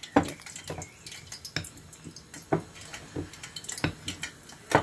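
Metal spoon stirring a thin white batter of water and flour in a ceramic bowl, clinking against the sides at uneven intervals, about one or two clinks a second, with a wet swishing of the liquid between.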